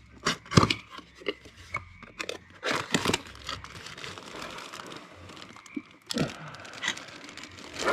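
The box of a new hydraulic return filter kit being opened by hand: irregular tearing, crinkling and rustling of the packaging, with sharp clicks and scrapes.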